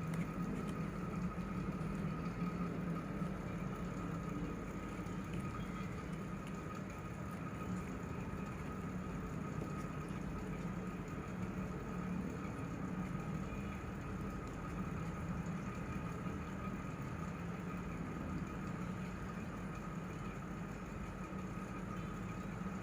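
A steady, unchanging mechanical hum, like a small motor running.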